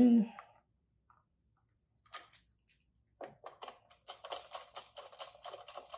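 Small clicks and scrapes of a screwdriver fastening a 12 volt wire into a screw terminal block on an access-control board. They are sparse at first, then come in a quick run of about five a second over the last two seconds.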